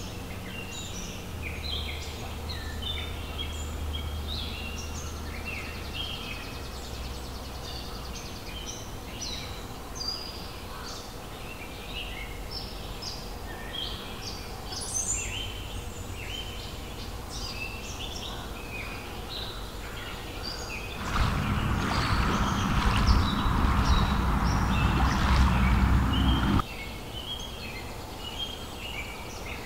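Many small forest birds chirping and singing in short high calls, over a low steady rumble. About two-thirds of the way through, a louder rushing noise comes in suddenly and cuts off abruptly about five seconds later.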